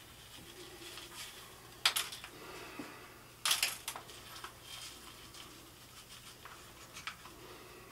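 Gritty bonsai substrate being scooped and poured into a pot, with a soft scratching rattle and two louder spills of grit about two and three and a half seconds in.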